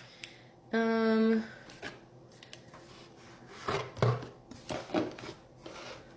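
A woman's brief held "hmm" about a second in, then rustling, light knocks and clicks as products and packaging from an unboxing are handled.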